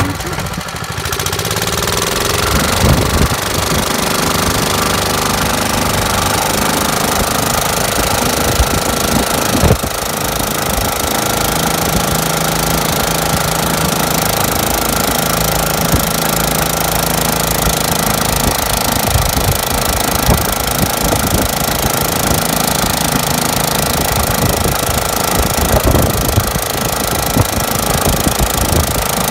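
Air-cooled 5.5 hp Honda four-stroke lawnmower engine, mounted as an outboard on an Evinrude 6 hp lower unit, running steadily under load as it drives the boat along. The revs come up in the first couple of seconds, and water rushes past the hull.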